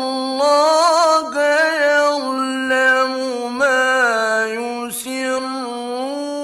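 A male Quran reciter chanting in the melodic mujawwad style: one solo voice holding long drawn-out notes with ornamented turns and pitch glides, broken by a short pause about five seconds in.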